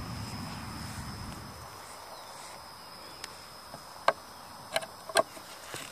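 A few sharp clicks from a metal tool tapping and working at a screw in a wooden beehive lid, starting about three seconds in, over a steady high insect trill.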